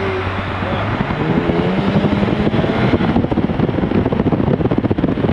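Two cars accelerating at full throttle side by side, heard from inside one of them. The engine note climbs in pitch over the first few seconds, then turns into a dense, rapid pulsing.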